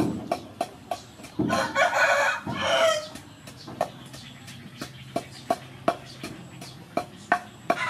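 Wooden pestle pounding in a wooden mortar, knocking steadily about three times a second as sauce ingredients are crushed. A rooster crows once about a second and a half in, the loudest sound, over the pounding.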